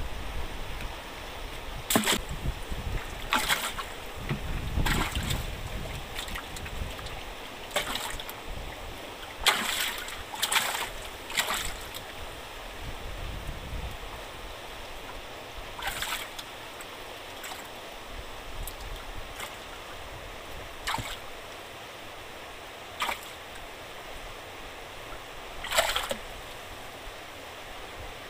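Steady rush of water pouring out of a fish-pond sluice gate. Sharp knocks and splashes come every few seconds, the loudest around a third of the way in and near the end.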